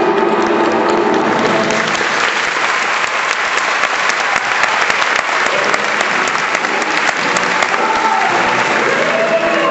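Audience clapping in a hall, dense and steady, as the music of a dance number dies away; music comes back in near the end.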